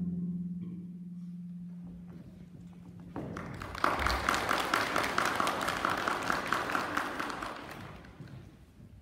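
A wind band's final chord dies away, with a low note lingering for about three seconds. Then a small audience claps, starting a little after three seconds in and fading out near the end.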